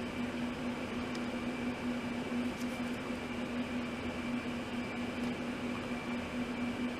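A small electric motor running steadily, a constant hum over an even hiss that does not change.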